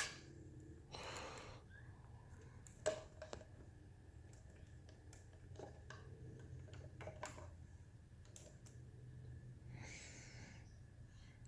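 Quiet handling noise: a few faint, irregular clicks and taps from voltmeter probes being set against the motorcycle battery's terminals, over a faint steady hum.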